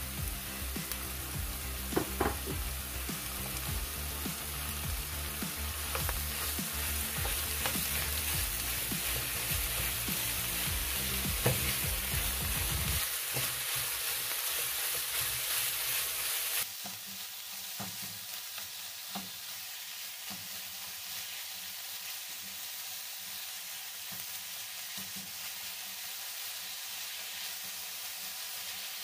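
Ground turkey with onions and green peppers sizzling as it fries in a nonstick pan, while a silicone spatula breaks it up and stirs it, with a few short scrapes against the pan. A little past halfway the sizzle drops suddenly to a quieter level.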